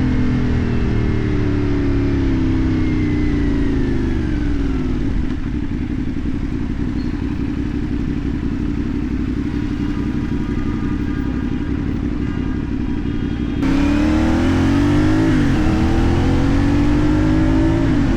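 CFMoto 450NK's parallel-twin engine through a LeoVince aftermarket exhaust, on the move. The revs fall away for the first few seconds and then hold steady and lower. About three quarters of the way through, the engine gets louder as the revs climb, with a short dip at a gear change before they rise again.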